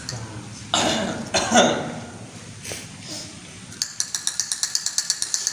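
A cough-like burst from a person about a second in, then a fast, even clicking, about eight clicks a second, for the last second and a half.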